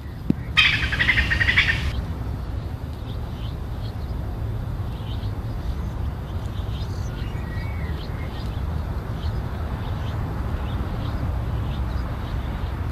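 Birds calling: a loud, rapid trill about half a second in that lasts just over a second, then scattered short, faint chirps. A steady low rumble runs underneath.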